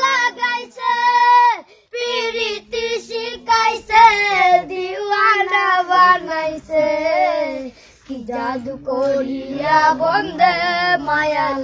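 A boy singing in a high voice with long held, wavering notes, pausing briefly about two seconds in and again about eight seconds in.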